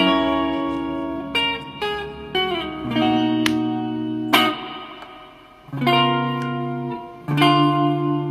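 Background music: plucked guitar chords, with a brief dip about five seconds in before new chords come in.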